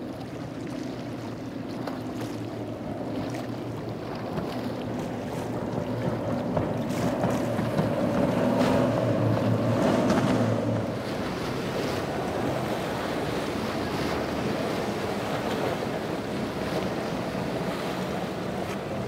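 A center-console boat's Mercury outboard engines running at speed, with the hull hissing through the water and wind buffeting the microphone; the sound swells as the boat passes, loudest about halfway through, then eases.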